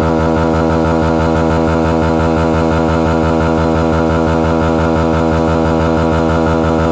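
Motorcycle engine running at a steady speed: one constant pitched drone with fast, even pulsing, holding the same note without revving up or down.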